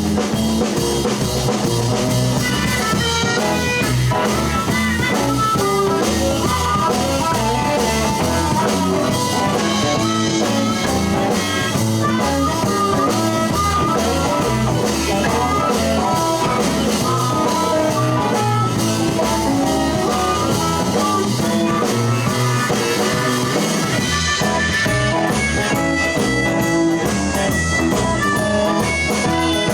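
Live blues band playing an instrumental break without vocals, with guitar and drum kit to the fore.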